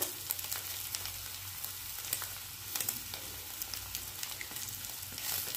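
Egg and dried-prawn curry sizzling steadily as it fries in a kadai, with a steel spatula scraping and tapping the pan now and then as it is stirred. The dry curry is almost done.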